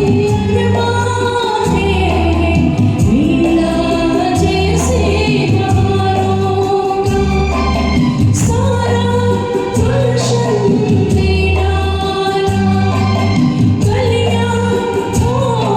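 A woman singing a Hindi film song over a karaoke backing track, her sustained, gliding melody carried on steady bass notes and light, regular percussion.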